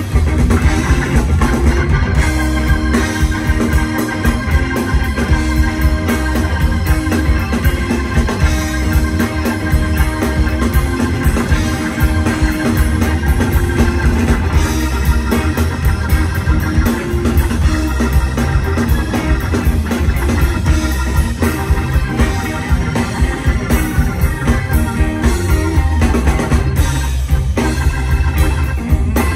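Live blues band playing an instrumental passage with the organ out front, over electric guitar, bass and drums.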